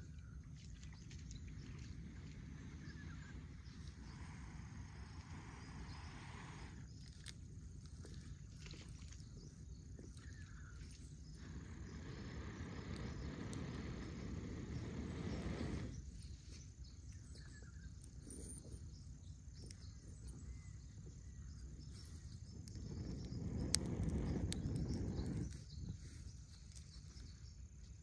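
A person blowing long breaths into a smouldering tinder bundle to coax a bow-drill ember into flame. Softer blows come in the first half, then two long, louder blows of about four and three seconds in the second half.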